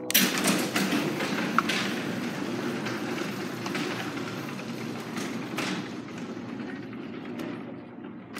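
Allister Power-Lift 1/3 HP garage door opener running and closing a Wayne Dalton sectional garage door: a steady mechanical rumble of motor and rolling door that starts suddenly and slowly grows quieter toward the end.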